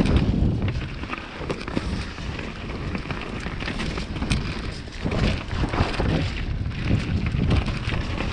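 Mountain bike descending a dirt forest trail at speed: tyres rolling over dirt and roots and the bike clattering over bumps, with many short knocks, under heavy wind noise on the microphone.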